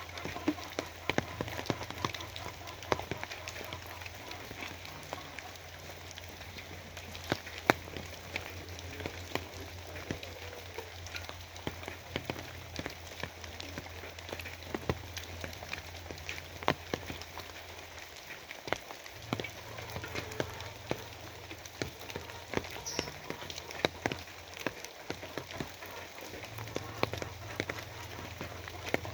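Steady rain falling on a hard surface, with many separate drops ticking sharply close by and a low hum underneath that drops out briefly a little past the middle.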